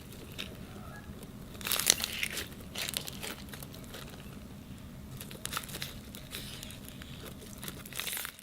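Slime being squeezed and worked by hand, making clusters of crinkly, crackling clicks over a low steady hum; the loudest cluster comes about two seconds in.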